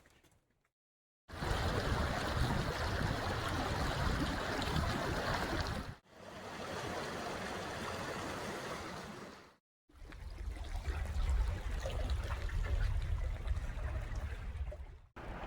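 Steady rushing water of a waterfall, heard in three short stretches cut together, with brief silent gaps about a second in, around six seconds in and near ten seconds in; the middle stretch is quieter and fades in and out.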